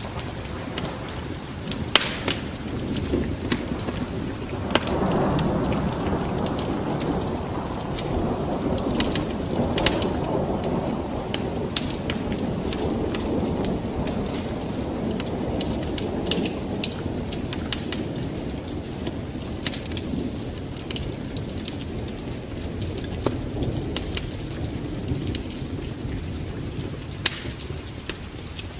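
Fire burning in a fireplace: irregular sharp crackles and pops over a steady low rush of flame, which swells for several seconds starting about five seconds in.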